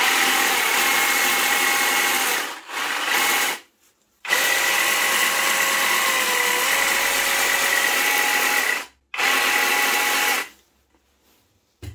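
Parkside 20 V cordless reciprocating saw running at a steady speed with a whine, switched on and off four times: a run of about two and a half seconds, a short one, a longer one of about four and a half seconds, and a short one near the end.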